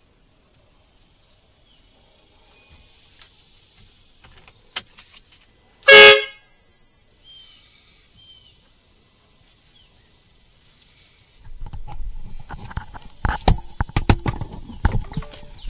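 A 12-volt compressor-fed air horn on a Polaris Ranger side-by-side gives one short, very loud blast about six seconds in, fired from a momentary push button. From about eleven seconds, knocking and rumbling handling noises follow.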